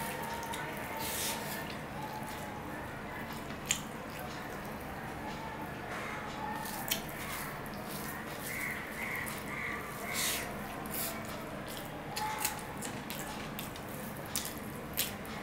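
Close-up eating sounds: wet chewing and squishing as fingers mix rice and curry on a steel plate, with several sharp clicks here and there.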